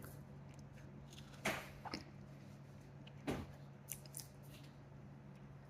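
Faint eating sounds: a few soft mouth smacks and small clicks as the cream filling of a chocolate sandwich cookie is eaten.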